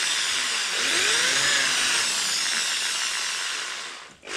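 Electric drill with a small bit boring through a seasoned cherrywood handle held in a vise. The motor runs steadily with its pitch wavering under load, slows and cuts out near the end, then starts again.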